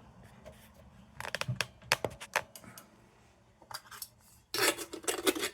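Sheet-metal cap of a Dietz No. 2 Blizzard lantern being fitted on: a string of light metal clicks and clinks, then a scraping rub of metal on metal near the end.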